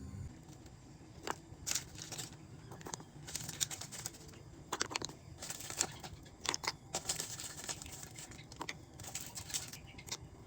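Irregular handling sounds: short clicks and crinkling rustles scattered over a faint steady hum.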